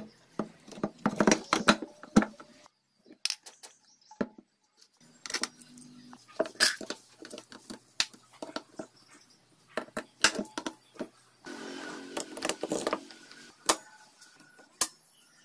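Irregular clinks, taps and knocks of metal engine parts, the gears, bearings and aluminium crankcase halves of a Honda MB50 50cc engine, being handled and fitted by hand. There is a short lull about three to four seconds in, and a denser rattle of handling about twelve seconds in.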